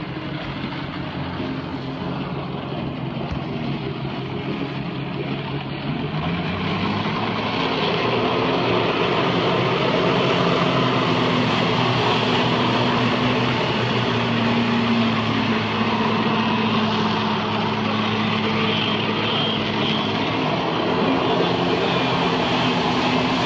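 Jet ski engine revving up about six or seven seconds in and then holding high revs to pump water through a hose to a flyboard. The water jets rush under the steady engine note.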